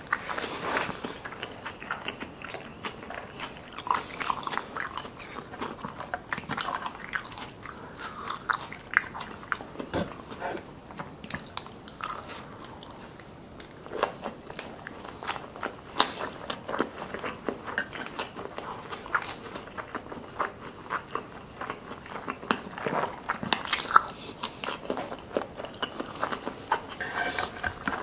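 Close-miked chewing of crispy fried food and sushi, with many sharp crunches in quick succession. The crunching eases off briefly around the middle, and one crunch stands out louder later on.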